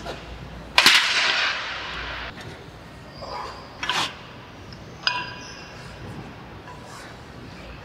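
Loaded barbell and iron weight plates clanging against a metal rack about a second in, ringing on for more than a second, then a lighter knock and a short ringing metal ding from the plates a few seconds later.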